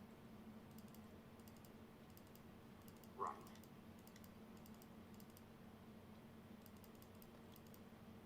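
Near silence with a faint steady hum and scattered faint clicks of keyboard typing; one short louder sound about three seconds in.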